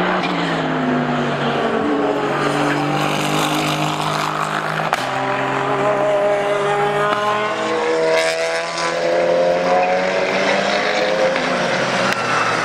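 Aston Martin Vantage GT3 race car's Mercedes-AMG 4.0-litre twin-turbo V8 at racing speed, its note stepping at several gear changes, with a sweep in pitch near the middle as it passes.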